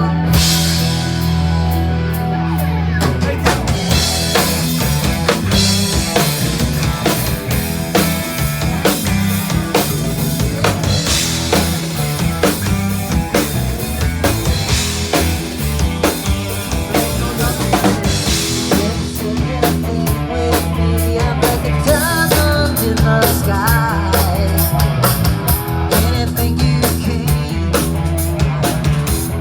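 Rock band playing at a sound check: held low bass notes, then a drum kit comes in about three and a half seconds in and keeps a steady beat with bass drum and cymbals under the bass line.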